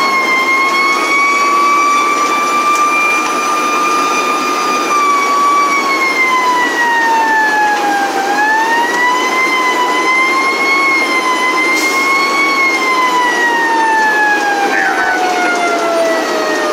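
A fire apparatus siren heard from inside the cab, one continuous wail that rises and falls slowly and unevenly, then slides steadily lower in pitch near the end. The truck's engine and road noise drone underneath.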